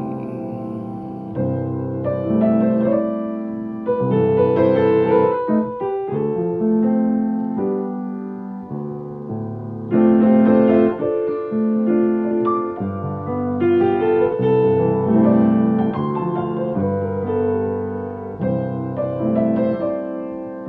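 Solo piano playing a melody over sustained chords, with no voice.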